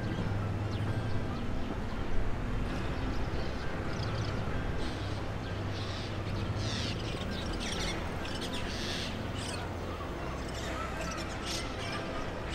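Small birds chirping and twittering repeatedly, with quick high sweeps, over a steady low hum.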